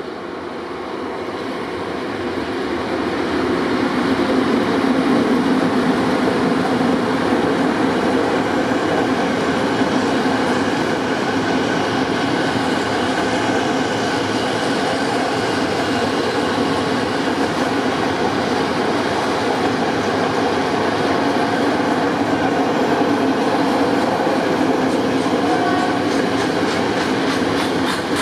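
A freight train passes: a PKP Cargo ET22 electric locomotive hauling container flat wagons. The wheels run on the rails with a steady rumble that swells over the first few seconds as the locomotive draws close, then holds level as the long line of wagons rolls by.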